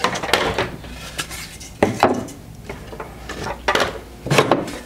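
Planed pallet-wood slats being handled and set down on metal bar clamps: irregular wooden knocks and clatters with rubbing as the boards slide against each other.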